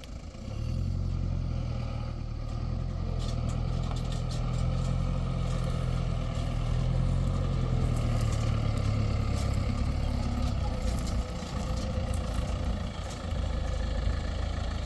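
An engine running steadily, coming in loud about half a second in, with scattered light clicks over it.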